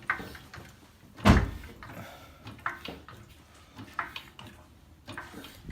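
A single heavy thump about a second in, followed by a few lighter knocks and clicks, like things being set down or bumped.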